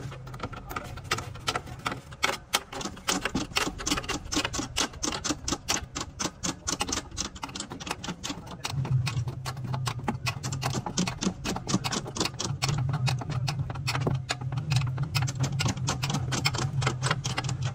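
Rapid, irregular mechanical clicking and rattling from factory machinery. A steady low hum joins about nine seconds in and runs under the clicks.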